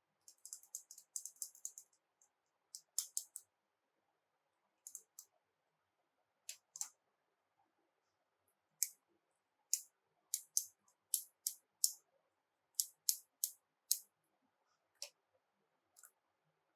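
Sharp, light clicks and taps of small plastic toy pieces being handled: a quick run of clicks in the first two seconds, then single clicks and pairs every second or so.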